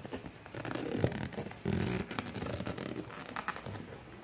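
Cardboard takeout box being handled and its scotch tape pulled at: irregular scraping and rustling with small clicks.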